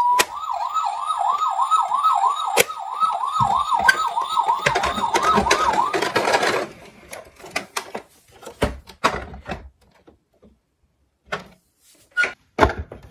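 Toy ambulance's electronic siren sounding a fast yelp, its pitch sweeping up and down about three times a second, cutting off about six and a half seconds in. Scattered knocks and clicks follow.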